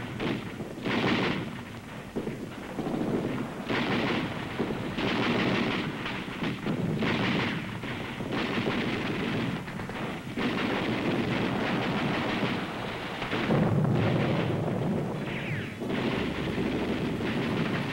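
Battle gunfire: repeated bursts of automatic weapon fire with scattered single shots, running on with short gaps. About fourteen seconds in there is a deeper, heavier blast.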